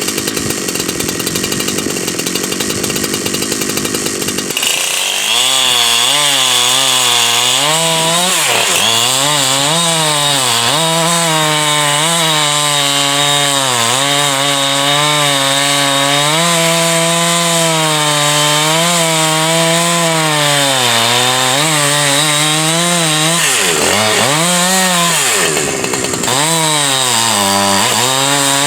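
Huztl 372 kit chainsaw, a two-stroke 372-type saw, running hard while noodling a log. The first few seconds are a rough, noisy sound. Then a clear engine note takes over, its pitch sagging and recovering several times as the chain bites into the wood.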